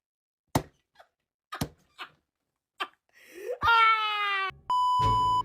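A few sharp knocks or thuds at uneven intervals, then a drawn-out wailing cry that falls slightly in pitch. It is followed near the end by a steady, even electronic beep like a censor bleep.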